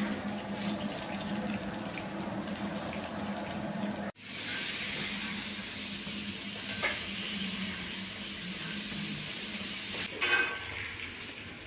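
Food frying in hot oil in a wok, a steady sizzle, with a couple of light knocks of a metal ladle against the pan. Before that, a steady low hum and hiss that cuts off abruptly about four seconds in.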